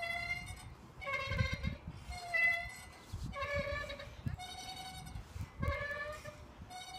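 Park swing's metal chain hangers squeaking at the top bar as it swings back and forth: a pitched squeal about once a second, alternating between a higher and a lower note with each pass. It sounds like an animal.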